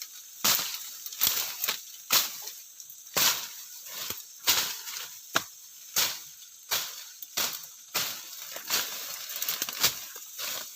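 Footsteps crunching through dry leaves and undergrowth on a rough forest path, a little over one step a second and uneven, with leaves rustling between steps.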